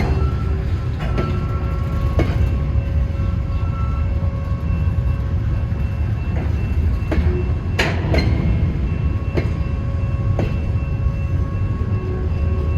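Freight train cars rolling past, with a steady low rumble of wheels on rail. Sharp clicks sound at irregular intervals, the loudest about eight seconds in, and faint thin wheel squeals come and go.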